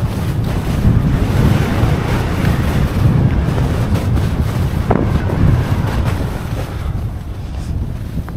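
Wind buffeting a skier's camera microphone as a heavy rumble, over the hiss and scrape of skis sliding and turning on snow, with a sharp click about five seconds in.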